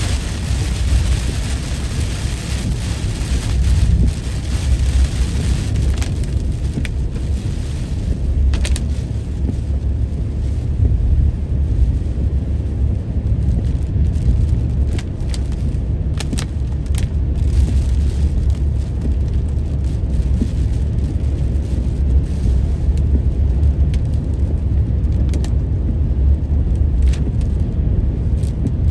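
Road and engine rumble inside a car driving on a wet road. Rain hisses on the windshield at first and eases off after about eight seconds, with occasional short knocks as the wipers sweep.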